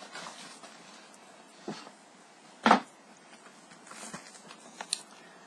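Handling of a plastic movie disc case: a few soft knocks and rustles, with one louder knock about halfway through.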